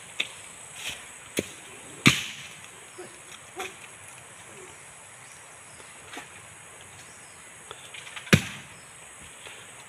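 Irregular sharp chopping knocks from a blade cutting at the crown of a coconut palm while it is cleared, about seven blows in all. The two loudest come about two seconds in and near the end.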